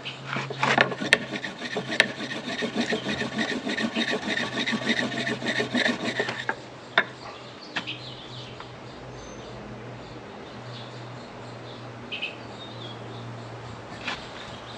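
Cotton ball fire roll: a wooden board rapidly rubbed back and forth over a cotton roll on a base board, about three to four rasping strokes a second for some six seconds, then stopping, as friction heats the roll toward an ember.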